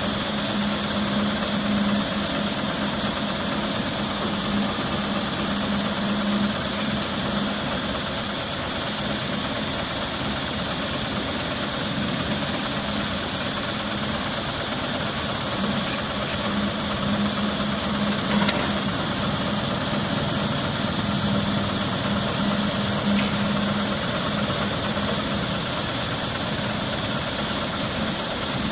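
A steady engine hum, like a motor idling, with a constant high hiss under it; a single sharp click comes about 18 seconds in.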